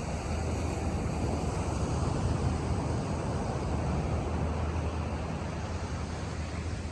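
Wind rumbling on the microphone over steady ocean surf, swelling slightly a couple of seconds in.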